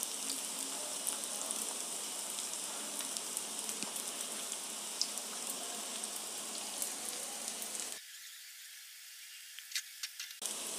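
Breaded vegetable cutlets shallow-frying in hot oil in a pan: a steady sizzle with scattered small pops and crackles. About eight seconds in the sizzle thins and drops quieter for a couple of seconds, with a few sharp crackles, before coming back.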